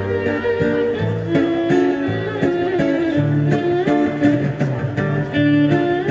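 Live instrumental music from a violin and a plucked string instrument, playing a melody over changing low notes.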